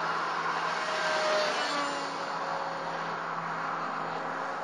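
Electric R/C airplane's brushless motor driving a small 5x4.5 Gunther propeller, whining in flight. It swells a little about a second in, and its pitch drops slightly as the plane passes.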